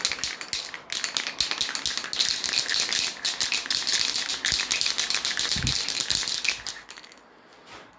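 Aerosol spray paint can being shaken hard, the mixing ball inside rattling in fast, even clicks, stopping near the end.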